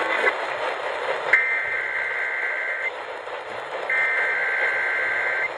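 Emergency Alert System header: digital data tones over AM radio static, sent in two bursts about a second and a half long with a one-second gap, starting a little over a second in. They open a Required Weekly Test.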